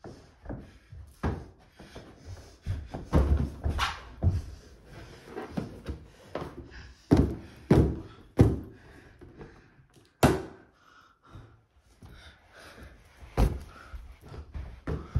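A hand slapping an inflated rubber balloon again and again, a string of dull thunks: three in quick succession around the middle, with a sharper crack about ten seconds in. Softer thuds of bare feet and knees on a carpeted floor come between them.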